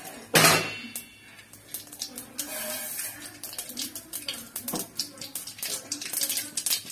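Hot oil sizzling and popping in an aluminium kadai, with a loud burst just after the start and crackling that grows denser near the end.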